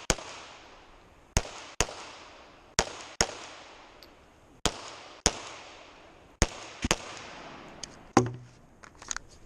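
Glock pistol fired in quick pairs, two shots about half a second apart with a pause between pairs, about ten shots in all, each followed by a short echo. These are double taps on a timed action-shooting course of fire.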